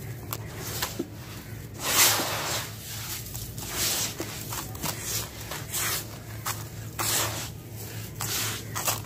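Handfuls of gritty sand and soil being lifted and let fall through the fingers into a basin, then raked by hand: a series of irregular hissing, crunching pours and trickles, the loudest about two seconds in.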